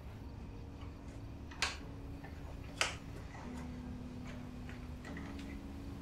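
Quiet background music of held notes that change pitch every second or two. Two sharp clicks sound about 1.5 s and 3 s in, with a few fainter ticks.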